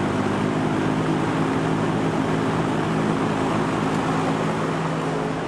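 Vintage McGraw Edison Zero box fan running with its motor freshly cleaned and lubricated: a steady rush of air from the blades over a low, even motor hum.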